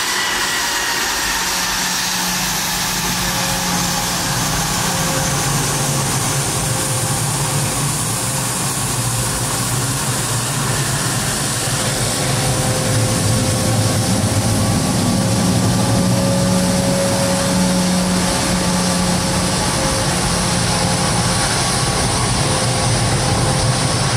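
Business jet's turbofan engines running at taxi power: a steady loud roar with a high whine, one part of which falls slightly in pitch in the first couple of seconds.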